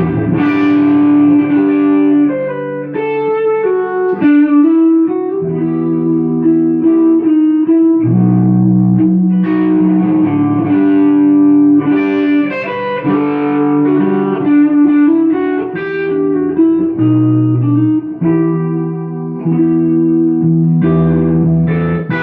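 Electric guitar, a Takamine GX-100 with its original DiMarzio pickups, played through a small lunchbox-size tube amp head: held chords and notes that change every second or so.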